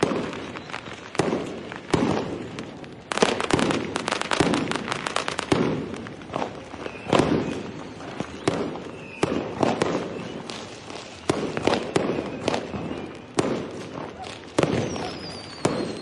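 New Year's Eve fireworks and firecrackers going off: loud irregular bangs about once a second. A few seconds in, a rapid crackling string of firecrackers runs for about two seconds. Near the end a thin falling whistle sounds.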